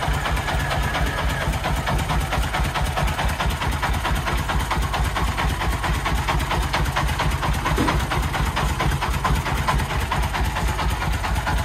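Diesel engine of a three-wheeled công nông dump truck, modified to 40 horsepower, idling steadily with an even, regular beat.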